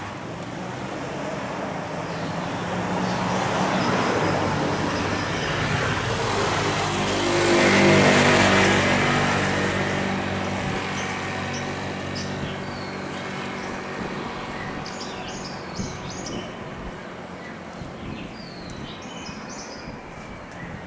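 Boeing 737-300 freighter's CFM56 jet engines passing on a landing approach. A rushing jet noise with an engine whine swells to a peak about eight seconds in, then slowly fades.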